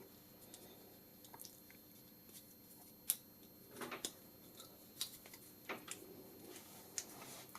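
Faint, scattered plastic clicks and handling noises from a small plastic clamp being worked by hand while a part that fell out is pushed back in; about five small clicks spread over the stretch.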